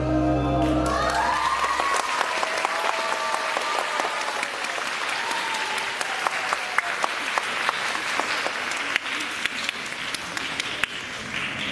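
Audience applauding, with a few cheering voices in the first few seconds as the last note of the music dies away; the clapping slowly thins out.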